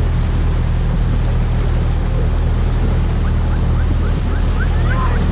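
Outboard motor, a Mercury Pro XS, running steadily as the boat cruises, with water rushing along the hull and wind on the microphone.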